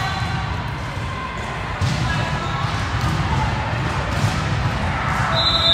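A volleyball bouncing on the court amid players' chatter. Near the end comes a long referee's whistle, the signal to serve.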